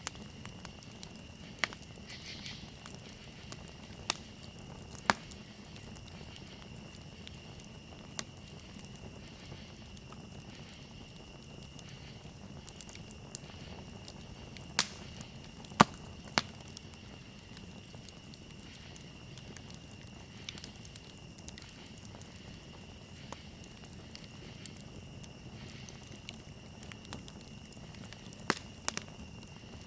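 Campfire burning: a steady low rumble of flame with sharp wood crackles and pops every few seconds, the loudest bunched together around the middle.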